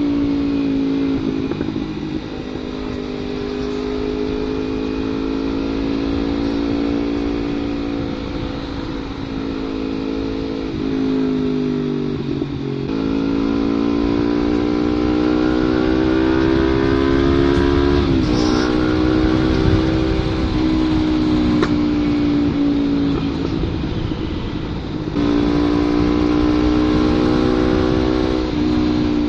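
Kawasaki Ninja 250 FI parallel-twin engine running through an aftermarket CLD header and Prospeed Black Series silencer. The exhaust note swells and eases, with several sudden jumps in pitch, over a steady rushing noise.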